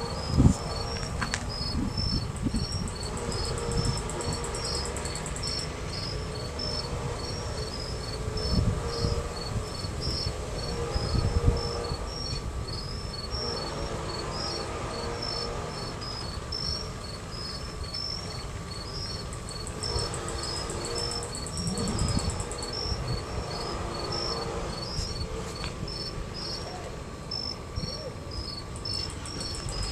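Crickets chirping steadily in a regular series of short high chirps, over a steady low rumble with a couple of dull thumps, the first about half a second in and another near the middle.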